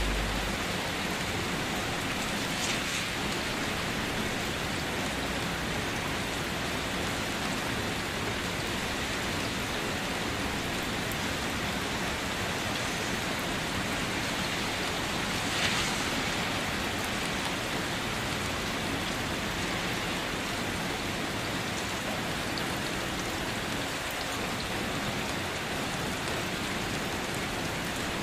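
Steady rain falling on a wet concrete yard, an even hiss with one brief louder burst about halfway through.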